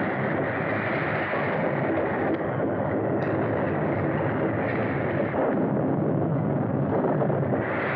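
A steady, loud rumbling roar, dense and even throughout, with no separate blasts standing out.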